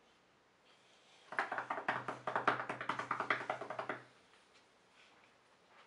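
A rapid run of taps like a drumroll, lasting about three seconds and starting about a second in.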